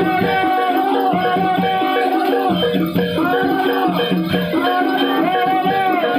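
Traditional Javanese gamelan music for a barongan performance: a wavering melody line over steady stepping notes of the ensemble.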